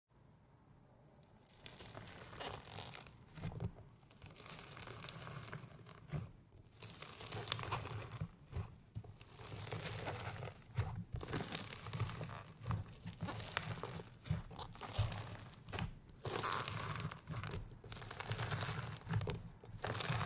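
Crunchy slime packed with foam beads and chunks being pressed and dug into by hand, giving a dense run of crackling and crunching pops. The sound starts about a second and a half in.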